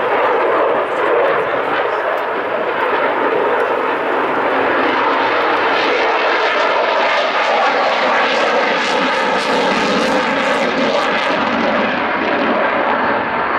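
F-35 Lightning II fighter jet flying past, with the loud, continuous rush of its single Pratt & Whitney F135 turbofan. From about halfway in, the sound turns brighter and harsher, with a crackle, then eases a little near the end.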